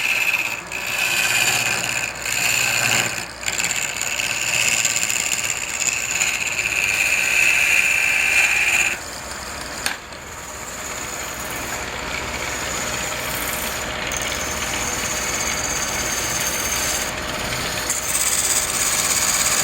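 Wood lathe running with a turning tool cutting the spinning wood, uneven and loudest for the first nine seconds. The cut then stops abruptly and the lathe runs on more quietly, growing louder again near the end.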